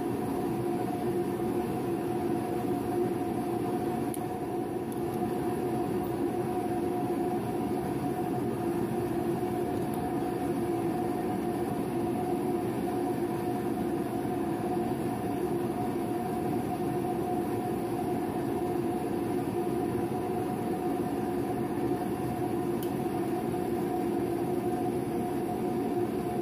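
Steady mechanical drone with a constant pitch, unchanged throughout.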